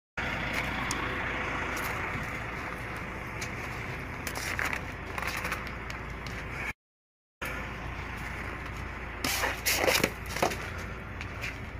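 Steady rumble of idling truck engines, broken twice by brief dropouts in the recording, with a burst of sharp crackling knocks about nine to ten and a half seconds in.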